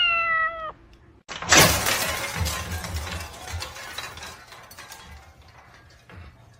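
A short squeal that falls slightly in pitch, then about a second and a half in a sudden loud crash with a shattering sound, followed by smaller clattering and rattling that fades out.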